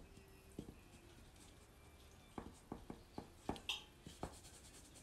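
Faint scratching and tapping of a stick of soft pastel being stroked over drawing paper on an easel: a few short strokes, coming quickly in a cluster between about two and a half and four and a half seconds in.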